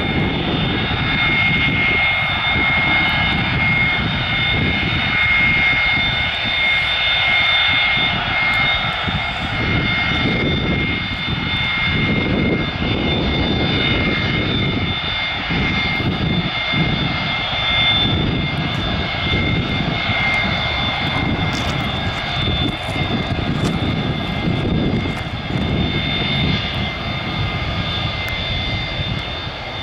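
Boeing 727-200 freighter's three Pratt & Whitney JT8D turbofan engines running as it taxis, a steady high whine over a low, unsteady rumble.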